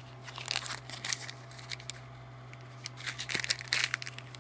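Crinkling plastic packaging of a washi tape pack being handled, in two bursts of rustling, about half a second in and around three seconds in, over a steady low hum.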